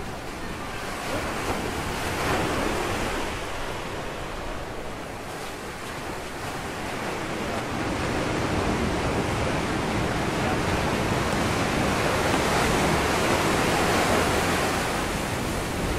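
Ocean surf washing onto a rocky shore: a steady rushing wash that swells slowly, building to its loudest a few seconds before the end.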